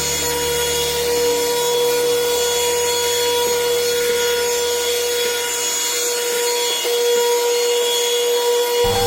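Baseus cordless handheld car vacuum cleaner running at full speed: a steady high motor whine over the hiss of rushing air, just after spinning up.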